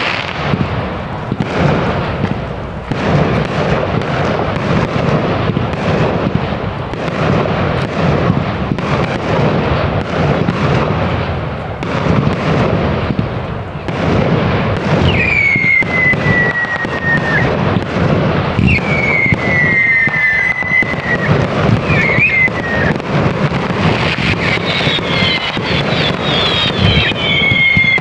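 A large fireworks display going off in a dense, continuous run of bangs and crackling. From about halfway in, several high whistles that fall in pitch cut through it, one after another.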